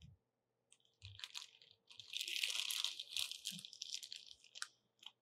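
A plastic shopping bag of artificial snow crinkling and rustling as it is handled and dug into, in irregular bursts that are loudest from about two to three seconds in.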